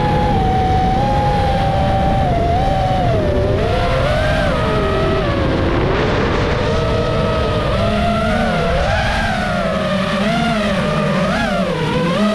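FPV racing quadcopter's motors and propellers whining, the pitch rising and falling repeatedly as the throttle changes, over a rough rumble of wind.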